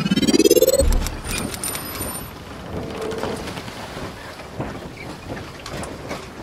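Intro sound effects: a rising sweep in pitch that ends in a low boom just under a second in, then an even hiss with scattered crackles and a couple of brief high tones.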